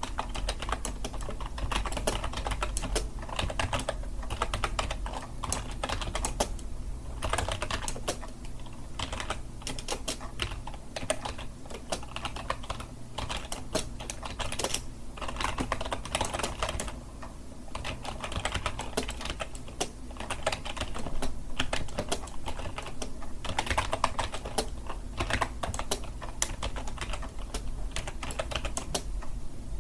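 Computer keyboard typing: fast, irregular key clicks in continuous runs with short pauses between bursts.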